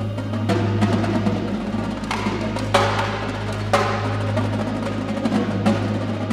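Indoor drumline playing live: marching snare and tenor drums with mallet percussion, in a run of quick strikes broken by sharp accents, the loudest a little under three and four seconds in, over a steady low tone.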